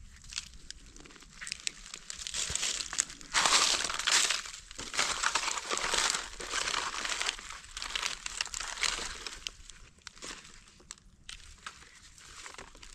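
Dry fallen leaves rustling and crackling as gloved hands dig through the leaf litter, with many sharp little crackles; loudest in the middle, quieter near the end.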